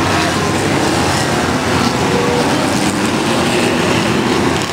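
A big field of enduro race cars running at speed around an oval track: a steady, loud blend of many engines together, with no single car standing out.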